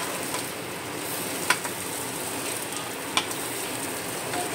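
Cutlets sizzling steadily as they shallow-fry in oil in a non-stick pan. A steel spatula clicks sharply against the pan twice as the cutlets are turned over.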